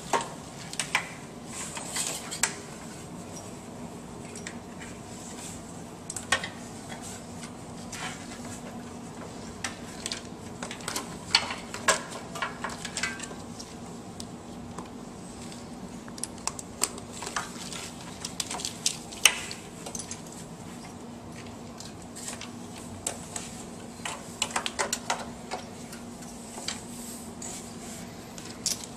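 Scattered clicks and light rattles of plastic wiring-harness loom and connectors being handled, pushed into place and clipped, over a faint steady low hum.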